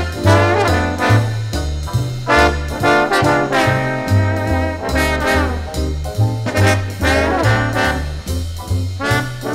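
Swing-style jazz band instrumental, brass playing over a walking bass line of about two notes a second, with drums.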